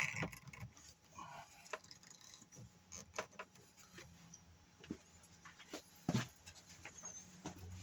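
Scattered light clicks and knocks of electric pressure washer parts being handled and fitted together by hand, with a sharper knock at the start and another about six seconds in.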